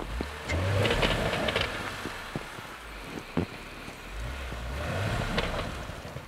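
A 4x4's engine revving in two surges, the first about a second in and the second around five seconds, as its tires spin in deep snow.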